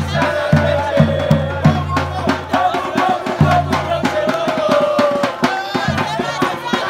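Football supporters singing a chant together, backed by deep bass drum beats and fast percussion strikes.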